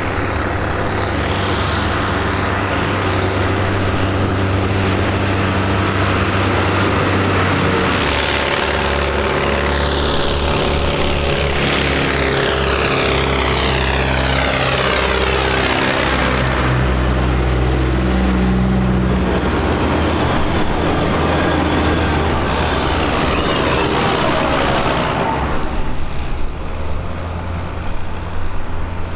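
Diesel farm tractors, among them a JCB Fastrac and a blue Ford, driving past one after another with their engines running. The sound swells as each one passes close by, twice in particular.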